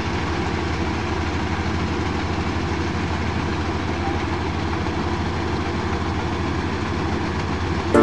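Gobind 988 combine harvester's engine and machinery running steadily while it unloads wheat grain through its auger into a trolley.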